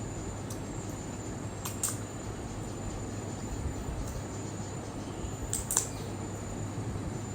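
Insects trilling steadily in a thin high pitch over a low hum, with a few brief clicks about two seconds and six seconds in.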